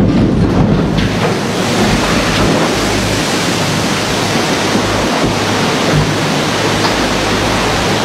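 Loud, steady rush of splashing water as a cargo ship is side-launched into a canal, its hull dropping into the water and throwing a wave across.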